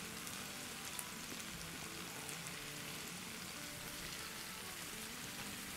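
Marinated chicken pieces sizzling in hot oil in a frying pan, a faint steady hiss, with one light tap about a second in.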